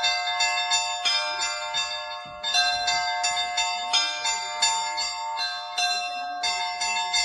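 Russian Orthodox-style bell ringing on a set of high-pitched bells, struck in a quick, steady rhythm of about three strikes a second, with a brief pause about two seconds in before the pattern resumes.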